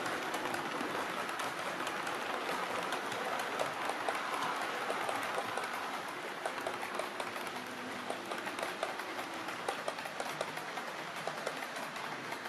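OO gauge model train, a Bachmann Class 37 diesel hauling coaches, running past on the layout track: a steady rushing rattle of wheels on rail with many quick clicks over the rail joints, easing off a little as the coaches go by.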